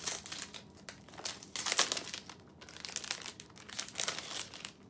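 Clear cellophane wrap being torn off a perfume box and crinkled in the hands, in irregular bursts of crinkling.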